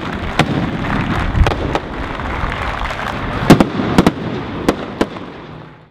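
Fireworks going off overhead: a scattered series of sharp cracks and bangs over a continuous rumble, the loudest cluster past the middle, fading out near the end.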